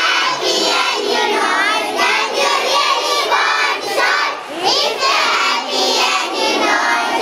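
A group of children singing together, many young voices at once and close to the microphone.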